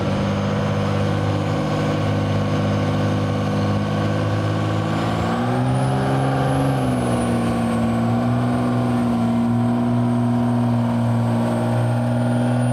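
Dodge Ram dually's Cummins turbodiesel pulling a weight-transfer sled under heavy load. The engine note holds steady, then rises about five seconds in and holds at the higher pitch, with a high turbo whistle climbing alongside it.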